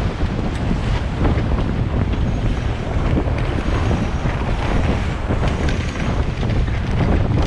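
Wind buffeting the microphone over the rush and slap of choppy water along the hull of a gaff-rigged sailing boat beating upwind. The noise is steady and loud, rising and falling with the gusts.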